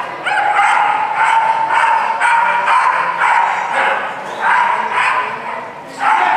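A dog barking rapidly and repeatedly, high-pitched yaps about three a second, pausing briefly near the end before starting again.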